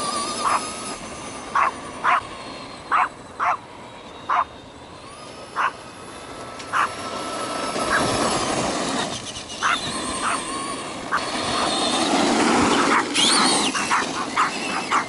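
A dog barking in short, sharp yips, a dozen or more spaced about a second apart, as it chases an RC truck. Under the barks the electric RC monster truck runs over dirt, its motor and tyres whirring louder through the second half.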